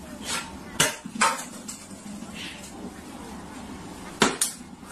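A plastic water bottle knocking and clattering on a hard shelf. There are two sharp knocks about a second in and two more just after four seconds.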